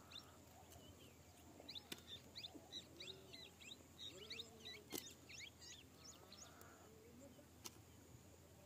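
Faint bird chirping: a rapid string of short, high calls from about two to six seconds in, with a few soft clicks, over otherwise near silence.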